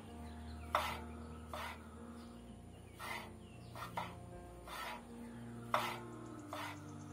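Kitchen knife slicing unripe jackfruit bulbs on a wooden chopping board: seven short knocks of the blade on the board, about one a second. Soft background music with held notes plays behind.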